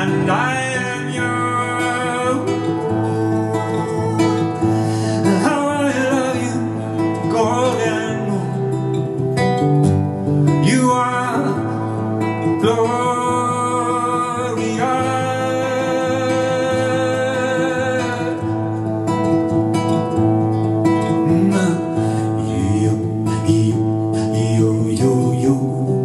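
A man singing in phrases while playing an acoustic guitar.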